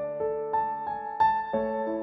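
Background music: a soft piano-like keyboard playing a melody of held notes over chords.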